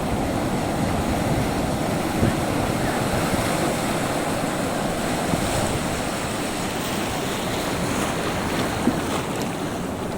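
Sea surf washing onto a sandy beach, a steady continuous rush of breaking waves, with wind noise on the microphone.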